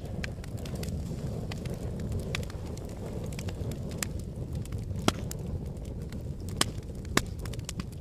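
Fireplace fire crackling: a steady low rumble of burning with scattered sharp pops, three louder ones coming in the second half.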